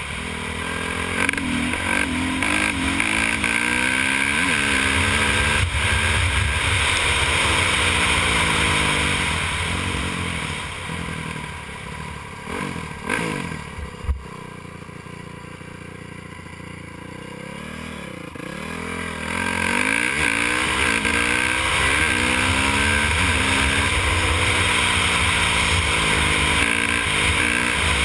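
2002 Honda CRF450R's single-cylinder four-stroke engine revving hard and shifting up through the gears, its pitch repeatedly climbing and dropping back. Around the middle it eases off to a quieter, lower run for several seconds, then pulls hard again.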